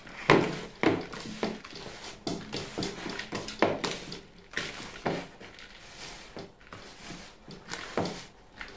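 A hand kneading and squashing a coarse ground-almond dough against the bottom of a bowl, making irregular short pressing and squeezing noises about one or two a second. The dough has only its first egg in so far, and is being worked so the almond releases its oil and binds.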